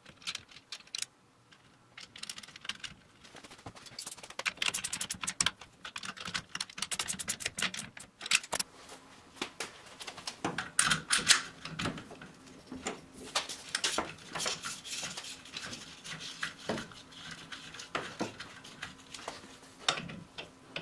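Small steel parts clicking and tapping as a brake cable guide is fitted into a drum brake backing plate and the cable's threaded end fitting is turned in with a wrench: irregular light metallic clicks, with a quick run of them between about four and eight seconds in.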